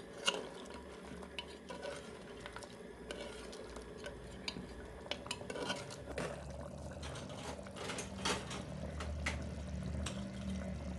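A ladle stirring curry in an aluminium pressure cooker, with scattered scrapes and clicks against the pot's sides. A low steady hum runs underneath and gets louder in the second half.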